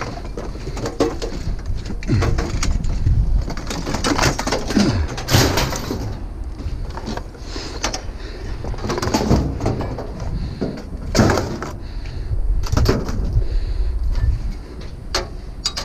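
Irregular knocks and clanks of scrap being handled, over a steady low rumble.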